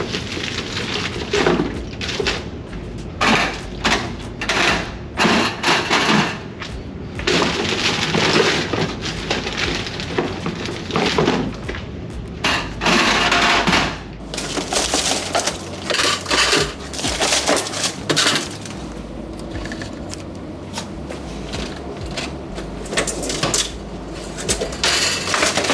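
Glass Snapple bottles clinking and knocking against each other and the machine as they are loaded into a vending machine, a long run of irregular clatter.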